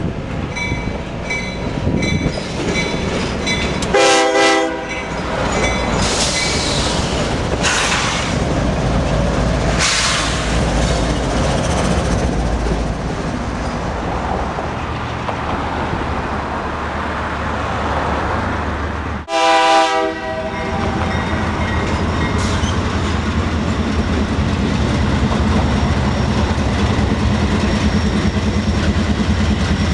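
Canadian Pacific diesel freight locomotives passing close by, with two short horn blasts, one about four seconds in and one near twenty seconds. Between and after the blasts the diesel engines run and the freight cars roll past with a steady rumble.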